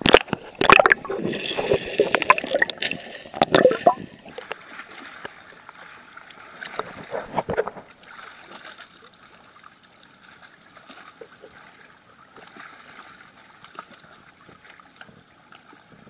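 Seawater sloshing, gurgling and splashing against a camera held at the waterline, loud and choppy for the first four seconds with another splash about seven seconds in, then settling to a quieter steady wash of small waves.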